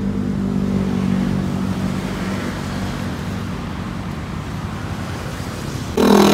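Steady road traffic noise from passing cars, with a low engine hum in the first couple of seconds that fades. Near the end a louder sound with a steady low hum comes in abruptly.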